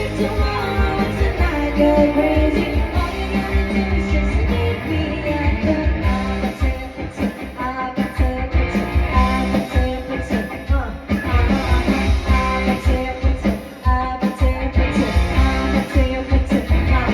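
Live band playing a rock song with singing, over a steady bass and drum beat.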